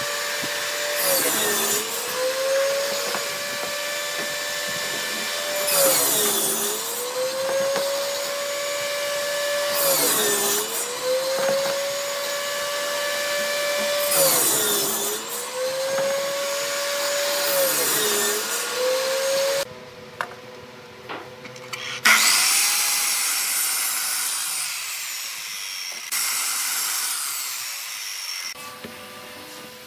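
Table-mounted circular saw running steadily, its pitch sagging each time the blade cuts through the wooden strip: five cuts about four seconds apart. About twenty-two seconds in, a miter saw starts with a high whine, cuts, and winds down.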